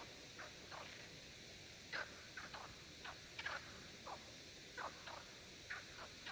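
Male frogs calling in a chorus: short croaks from several animals, about two a second at irregular spacing, over a steady hiss.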